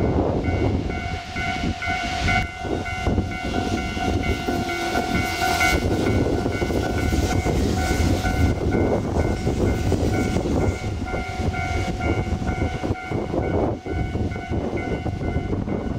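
Japanese level-crossing warning bell ringing over and over in an even, pulsing pattern, over the low rumble of a train running through the crossing.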